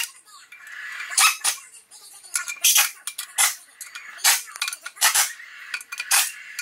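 Hand ratchet clicking in short rasps, roughly one every second, as it runs the clutch pressure plate bolts onto the flywheel.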